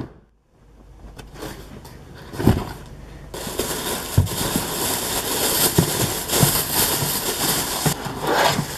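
Tissue paper rustling and crinkling as it is pulled out of a cardboard shoebox, with a few soft knocks from the box being handled.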